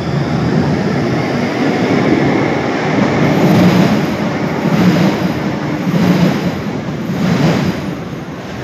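Articulated tram passing at speed through a tiled underground station: a loud, heavy rumble of wheels on rails, with a knock about every second and a quarter and a faint high-pitched whine from about three seconds in.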